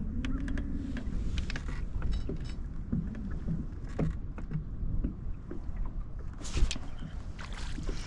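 Wind rumbling on the microphone aboard a small fishing boat, with scattered light clicks and knocks, a cluster of them about six and a half seconds in.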